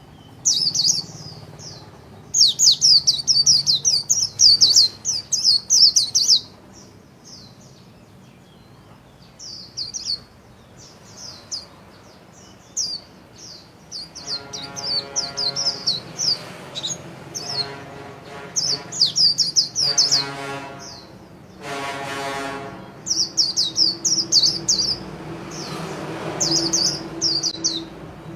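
Caged white-eye singing its rapid 'líu' song: fast runs of high, thin twittering notes in repeated bursts, the longest and densest a few seconds in. In the second half a lower, steady tone with many overtones sounds under the song.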